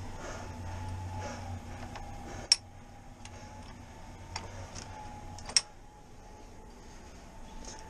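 Two sharp clicks about three seconds apart, with a few fainter ticks, over a faint steady hum.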